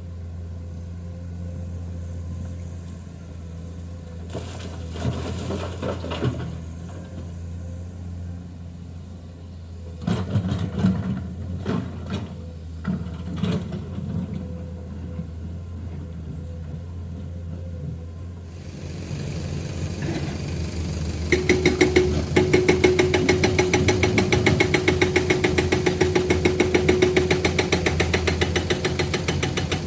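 Heavy diesel machinery running with a steady low drone, with irregular clattering knocks for a few seconds near the middle. About two-thirds of the way in, a louder, fast, even mechanical rattle starts and carries on.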